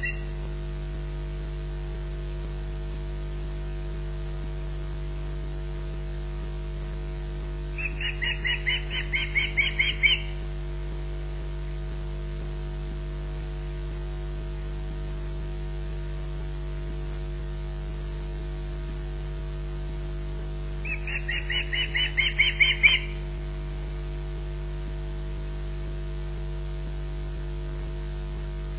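Osprey alarm calls: two bouts of rapid, repeated high chirps, each about two seconds long and getting louder toward its end, warning at corvids near the nest. A steady electrical hum from the nest-camera audio runs underneath.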